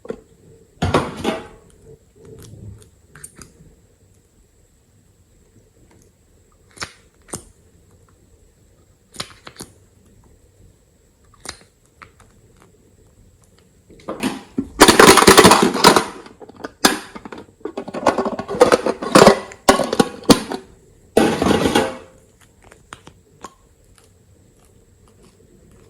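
Slime being squeezed and worked by hand, making sticky clicking and popping sounds: scattered single pops, then several seconds of dense crackling from about halfway through.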